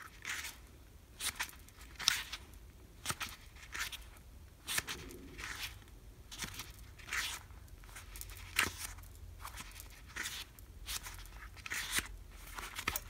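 Paper pages of a small paperback guidebook being turned one after another, a short papery rustle about once a second.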